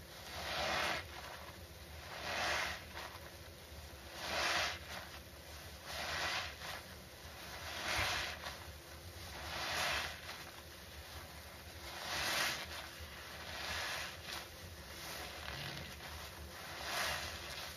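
Foam sponges full of thick cleaning-solution suds being squeezed by hand. Each squeeze gives a wet squelch with a crackling hiss of foam, repeating about every two seconds.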